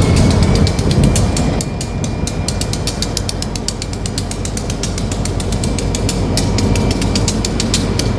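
Diesel locomotive rumbling low as it creeps slowly along the track, with rapid, even clicking, about eight or nine clicks a second, and a thin steady high tone over it.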